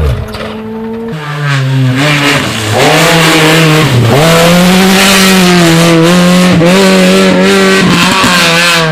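Rally car engine under hard throttle close by. The revs climb about a second in, dip sharply about four seconds in as at a gear change, hold high and steady, then fall away near the end.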